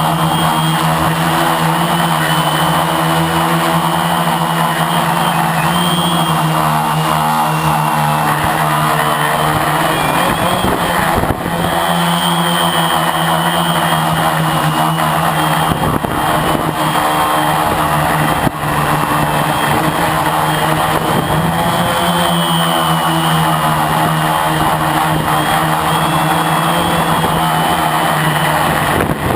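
Brushless motors and propellers of a Lotusrc T380 quadcopter droning, heard through the onboard GoPro. The pitch drifts gently up and down as the throttle changes, with two short dips in loudness.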